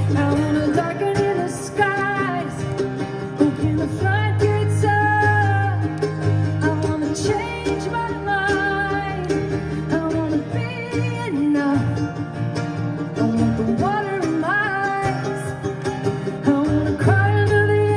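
Live acoustic music from a mandolin and an acoustic guitar, with singing over the playing.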